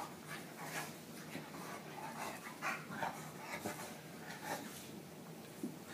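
English bulldog rolling and rubbing herself on a blanket after a bath: short, irregular dog noises mixed with the rustle of the blanket, coming in quick bursts every second or so.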